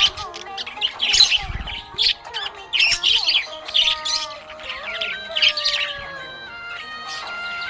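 Budgerigars chirping and chattering in quick repeated bursts of high, scratchy calls, over background music of long held notes.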